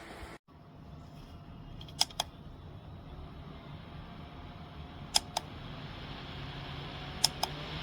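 Small USB desk fan running with a faint steady hiss and hum, getting slightly louder, with three sharp double clicks about two and a half seconds apart.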